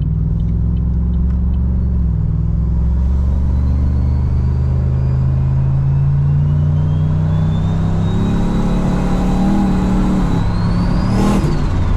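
Turbocharged LS V8 of a Commodore pulling under light throttle, its note climbing steadily with a thin turbo whine rising above it. Near the end the throttle is lifted: a short burst of air noise and the whine falls away.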